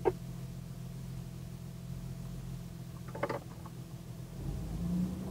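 Jeep TJ engine idling, heard from inside the open-topped cabin as a steady low hum. Near the end the engine note rises a little for about a second.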